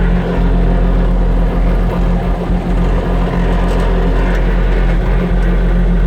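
Bobcat T870 compact track loader's Kubota 3800 diesel engine running steadily, a loud, even, low drone.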